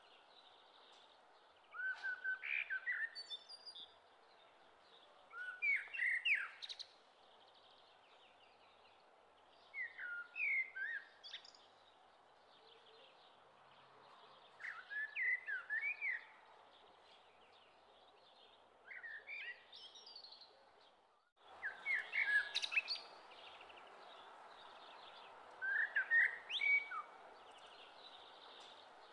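Bird song: short chirping phrases that come about every four seconds over a steady hiss, with a brief dropout about three-quarters of the way through.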